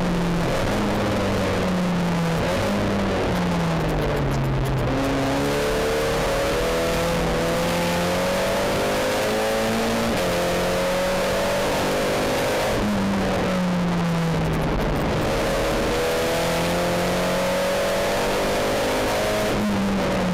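SEAT Leon Supercopa's turbocharged four-cylinder race engine heard from inside the cabin under hard acceleration, its pitch climbing through the gears with a quick drop at each upshift. Twice the note slides down for a couple of seconds as the car slows for a corner.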